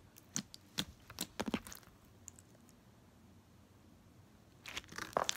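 Slime being squeezed and worked in the hands, giving a string of small sticky clicks and pops for the first couple of seconds, a quiet pause, then a quicker run of clicks near the end.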